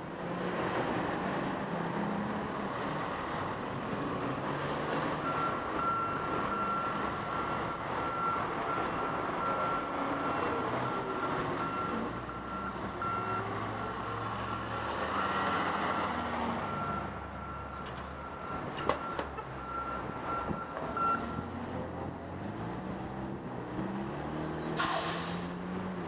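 Street traffic noise with a vehicle's reversing alarm beeping at an even rate, from about five seconds in until about twenty-one seconds in. A short loud hiss comes near the end.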